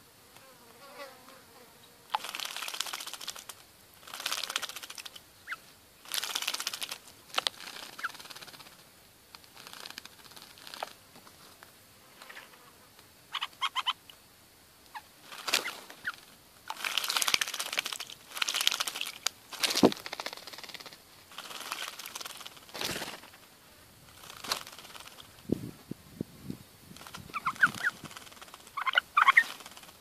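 Bulbuls bathing in a shallow pond: repeated bursts of splashing and wing fluttering in the water, each lasting about a second, coming every second or two. A few short bird chirps come near the middle and again near the end.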